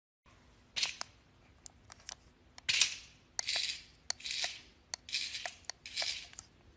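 A cat hissing in short bursts, several in a row, at a toy snake, with light clicks and taps between the hisses.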